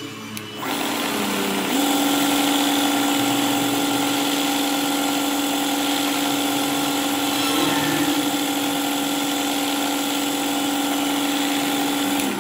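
Small electric power tool motor starting up, settling into a steady high-pitched hum about two seconds in, and cutting off abruptly near the end.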